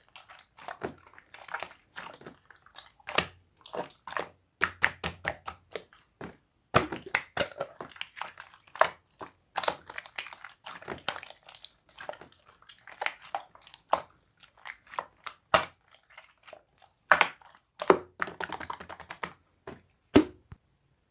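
Slime being squished and pressed, making irregular sticky clicks and dense crackling clusters, with short pauses between handfuls.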